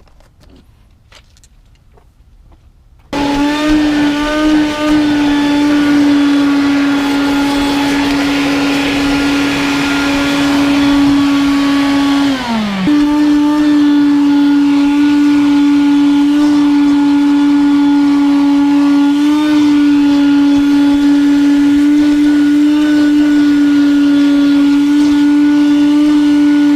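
A vacuum cleaner switched on about three seconds in, its motor running with a loud, steady whine over a rushing hiss. About halfway through, its pitch sags briefly and then recovers, as when the motor is loaded by the nozzle.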